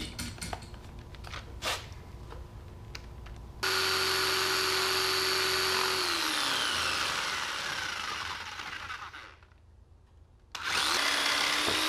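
Corded electric jigsaw cutting PVC pipe: after a few light knocks, the motor starts suddenly with a steady whine about three and a half seconds in, then slows with a falling whine and stops. It starts up again near the end.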